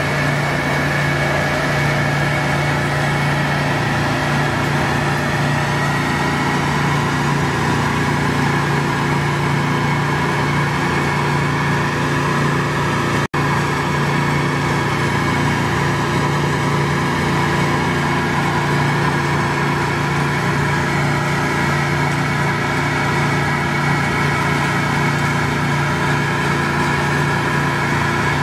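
A small engine runs steadily, an even machine drone, with a brief dropout about 13 seconds in.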